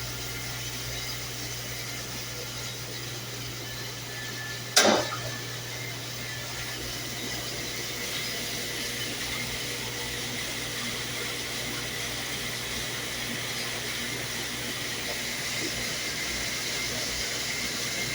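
Commercial dishwasher running: a steady wash noise over a low hum, with one sharp clunk about five seconds in.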